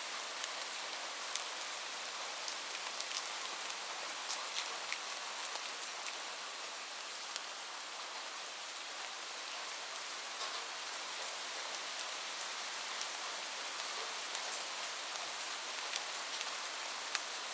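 Steady rain falling on a roof, an even hiss with single drops ticking sharply here and there.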